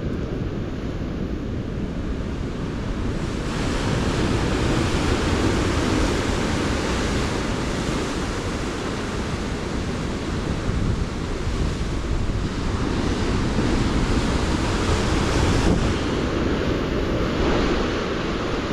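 Ocean surf with wind buffeting the microphone: a steady, heavy rush of noise that swells a few seconds in and again toward the end.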